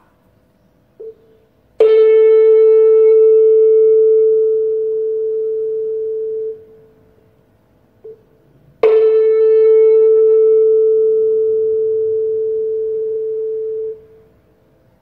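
A 440 Hz tuning fork on a wooden resonance box, struck twice with a mallet. Each time a loud, steady pure tone rings and slowly fades for about five seconds, then stops abruptly as the fork is gripped by hand.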